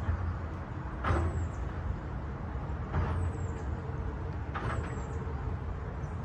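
Wind buffeting the microphone on an open field, a steady uneven low rumble. A few brief, slightly louder sounds come through about one, three and four and a half seconds in.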